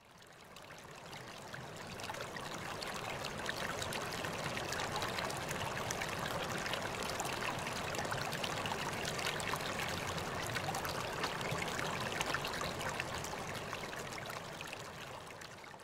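Running stream water, a steady rushing that fades in over the first few seconds and fades out near the end.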